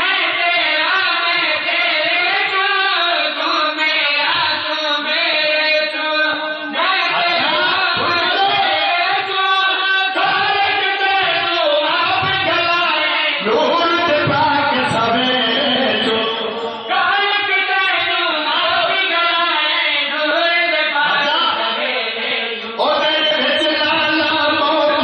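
A group of men singing a religious verse together in chorus, unaccompanied, in long drawn-out phrases that break off and start again every few seconds.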